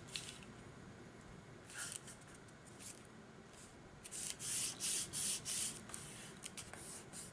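Hands rubbing and smoothing a freshly glued paper pocket down onto cardstock, making soft papery swishes. There is a brief one about two seconds in, then a run of several quick strokes a little past the middle.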